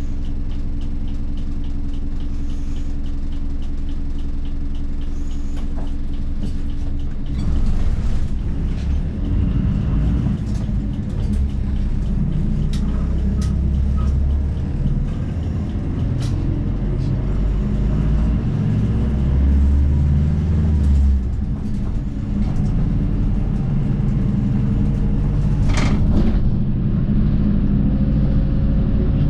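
Diesel engine of a route bus heard from inside the cabin: steady with a light regular ticking for the first seven seconds or so, then louder and rougher as the bus drives on, with a sharp knock or rattle about 26 seconds in.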